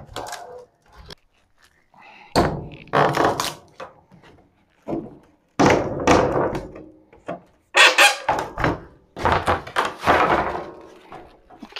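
A series of thunks and clattering knocks in about four clusters, as the parts and packing of a metal lathe's shipping crate are handled and shifted.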